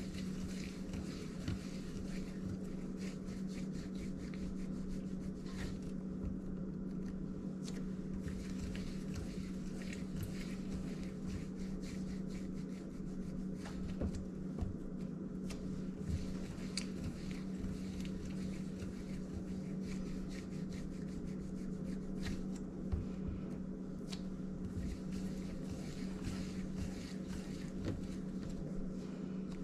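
Hands rolling and shaping soft bread dough pieces on a silicone baking mat: soft rubbing with scattered light taps and clicks, over a steady low hum.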